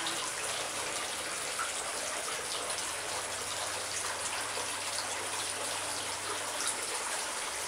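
A steady rushing hiss with a faint low hum underneath, unchanging throughout, with no distinct knocks or taps.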